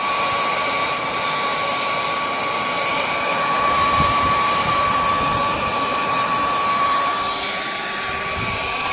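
Forge air blower running steadily: a rush of air with a constant motor whine.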